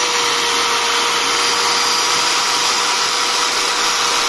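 Nagasaki 1000-watt angle grinder running unloaded with no disc fitted: a steady, unchanging motor whir with a faint steady tone through it.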